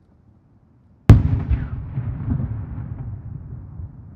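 A single loud firework shell bursting about a second in: one sharp boom, then a low rumbling tail that fades over about three seconds, with a few faint smaller pops in it.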